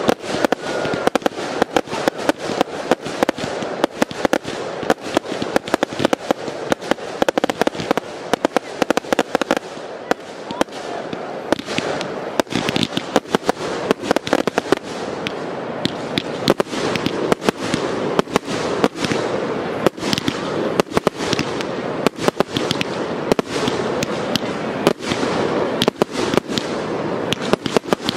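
Fireworks batteries firing in rapid succession: a dense, continuous run of launch thumps and bursting shells, several bangs a second, over a steady crackle.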